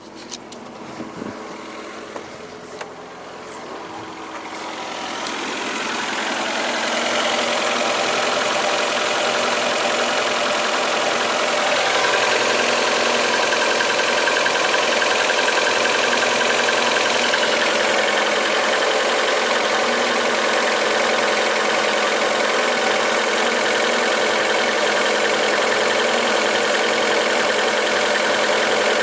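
Fiat Stilo 1.6 16V four-cylinder petrol engine idling steadily, with a few clicks in the first seconds and the sound growing louder over a few seconds, then changing again about twelve seconds in. The car has a faulty lambda (oxygen) sensor, code P0130.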